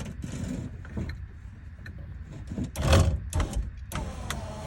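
Panoramic sunroof moving on its motor, with mechanical clunks and rattles, loudest about three seconds in, and an electric motor whine starting near the end.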